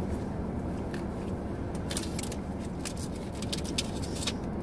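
Trading cards being handled and shuffled, giving scattered light clicks and crinkles, over the steady low hum inside a car.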